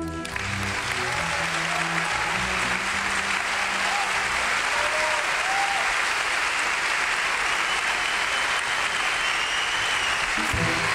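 An audience applauding at the end of a song, while the last held low notes of the accompaniment die away over the first few seconds. Near the end, new music with plucked strings starts up.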